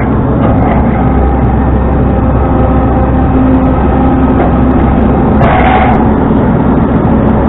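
Tow truck running, a loud steady drone of engine and road noise, with a brief brighter sound about five and a half seconds in.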